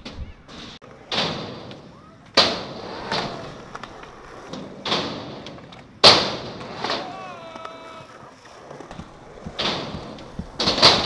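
Skateboard wheels rolling on concrete, broken by a string of sharp board slaps and landings, about eight in all, the loudest about six seconds in. A short pitched tone sounds a little after seven seconds.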